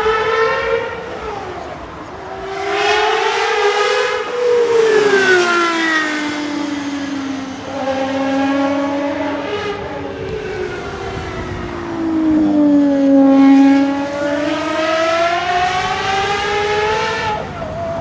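Gordon Murray T.50's naturally aspirated Cosworth 3.9-litre V12 running at high revs on track. Its high-pitched note rises and falls several times as the car accelerates and lifts off.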